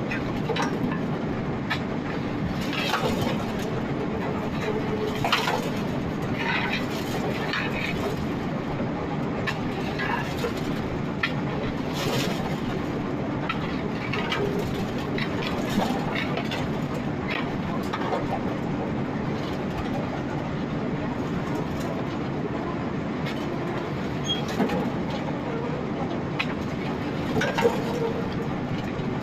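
Ear-corn feed grinder and chain drag-feed conveyor running steadily, with irregular knocks and clatter as ear corn drops onto and rides along the conveyor.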